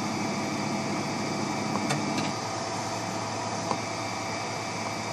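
Solidoodle Press 3D printer running, with a steady fan noise. A humming tone over it stops a little over two seconds in, and there are a few light clicks.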